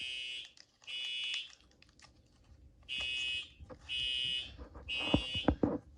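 Two fire alarm horns sounding in sync in the temporal-three evacuation pattern: three half-second buzzy blasts, a pause, then three more. A few sharp knocks of handling come near the end.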